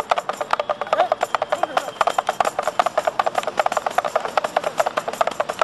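A drum beaten in a fast, even rhythm, many strokes a second.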